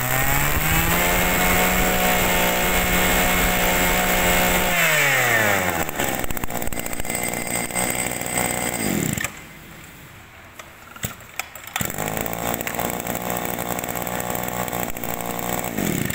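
Small petrol engine of an HG brush cutter running: revved up and held high for a few seconds, then dropping back to a lower speed. It cuts out about nine seconds in, a few clicks follow, and it runs again about three seconds later, the revs falling away near the end.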